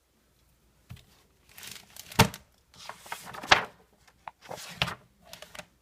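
Pages of a book being handled and turned: several rustling swishes of paper, with two sharp taps, the first about two seconds in and the second a little over a second later.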